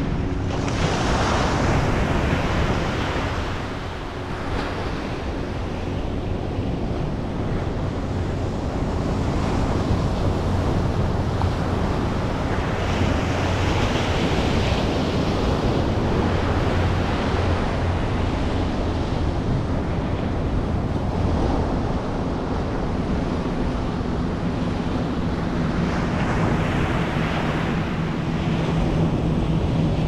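Ocean surf breaking and washing up on a sandy beach, swelling with each wave set: about a second in, around the middle, and again near the end. Wind buffets the microphone throughout.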